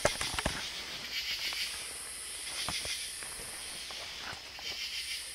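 Night insects chirring in a steady, very high-pitched drone, with a lower shimmering layer beneath it. A few sharp knocks come near the start, the loudest right at the beginning, and a few fainter ones later.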